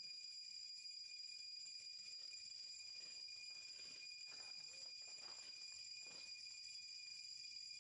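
Faint, steady high-pitched insect chorus, with a few faint short sounds in the middle.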